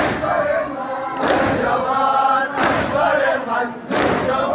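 Crowd of men chanting a noha together, led over a microphone, with a loud unison strike of hands on chests (matam) about every 1.3 seconds, four strikes in all.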